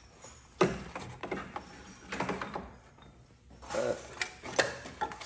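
Several short, irregular bursts of clicking, clunking and rattling from hand work in a car engine bay: a fire-damaged wiring harness and its connectors being pulled loose.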